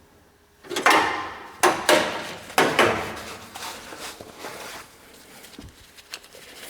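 Sharp metallic knocks and clunks as metal parts are handled in the car's trunk: about five hits in the first three seconds, each ringing briefly, then lighter rattling.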